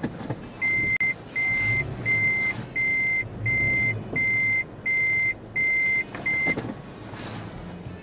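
In-cab reverse warning beeper of a Toyota FJ Cruiser sounding nine steady, high-pitched beeps at an even pace, about three every two seconds, while the truck creeps backward during a turn; the last beep is cut short as it stops. The low hum of the idling engine runs underneath.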